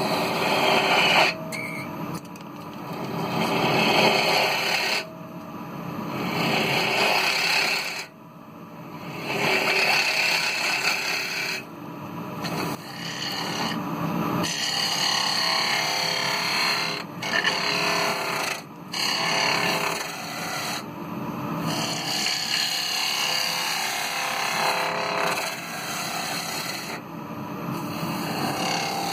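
Gouge cutting the inside of a spinning kiln-dried ash bowl on a wood lathe, a rasping hiss of shavings coming off in passes of a few seconds each with short breaks between, over the steady hum of the running lathe.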